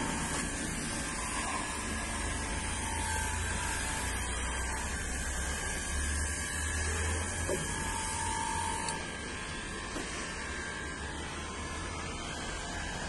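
Aerosol can of engine cleaner hissing as it sprays over an engine bay, with the hiss stopping about nine seconds in, over a steady low hum.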